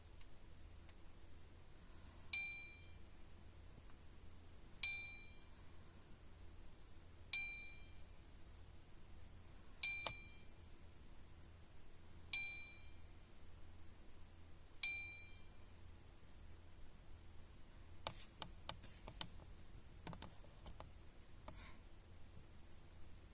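Suzuki Swift Sport's dashboard warning chime dinging six times, evenly about every two and a half seconds, as the instrument cluster reports faults from all its sensors. A few faint clicks follow near the end.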